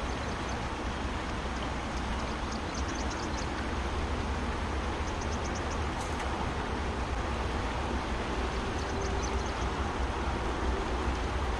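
Fast-flowing river water rushing steadily, with wind rumbling on the microphone. A few faint runs of high ticking come and go.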